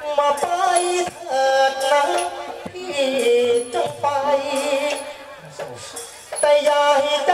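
Thai likay folk-opera singing: a performer sings a gliding, ornamented melodic line into a microphone over the stage sound system, with percussion strikes and rattling accompaniment.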